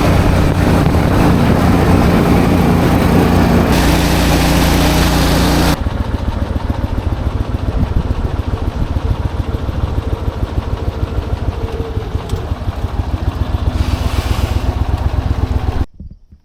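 A loud engine running steadily, changing about a third of the way in to a fast, even pulsing, then cutting off abruptly near the end.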